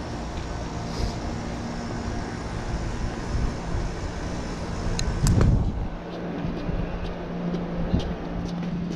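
Wind buffeting the camera microphone as a steady low rumble, with a stronger gust about five seconds in. After that a steady low hum comes in.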